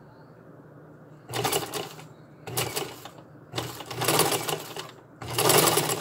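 Vintage black sewing machine stitching emoji ribbon onto collar webbing, in four short runs with brief pauses between them, starting about a second in.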